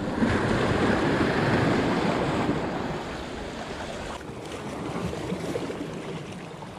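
Small sea waves washing and breaking against the boulders of a rocky breakwater, with wind on the microphone. The wash is strongest for the first couple of seconds, eases off, then builds again.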